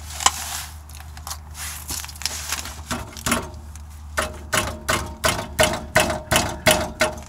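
GM Suburban's dual-wall exhaust pipe clanking: a few scattered metallic taps, then from about four seconds in an even run of about three clanks a second, each with a short ring. The owner takes the rattle for the inner pipe loose inside the outer pipe.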